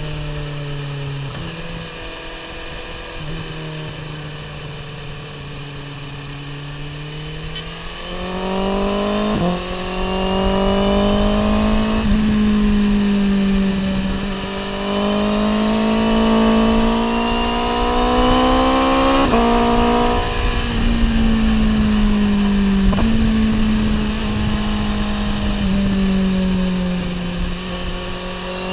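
BMW S1000R inline-four engine through an Akrapovic exhaust, riding along. It runs low and steady at first, then accelerates about eight seconds in, its pitch climbing with sudden drops at the gear changes. It eases off again near the end.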